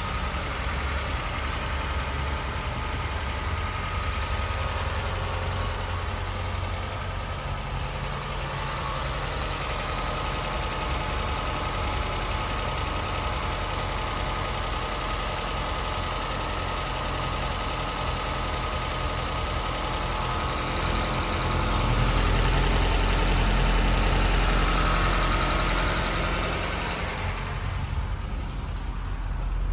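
Toyota Sera's 1.5-litre 16-valve EFI inline-four idling steadily with the hood open. A louder low rumble joins for several seconds about two-thirds of the way through.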